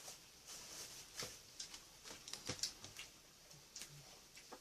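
Thin plastic produce bag crinkling as lettuce leaves are pulled out of it, with scattered sharp clicks and taps.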